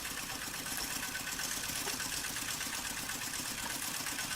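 Small farm machinery engine running steadily with a fast, even beat.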